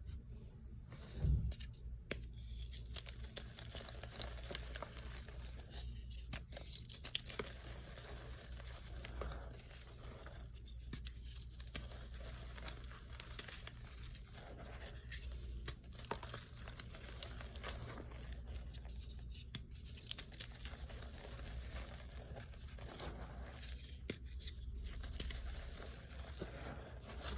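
Reformed gym-chalk hearts being crushed and crumbled: dense, crunchy crackling full of small snaps, in repeated presses with short lulls every four seconds or so. A low thump about a second in is the loudest moment.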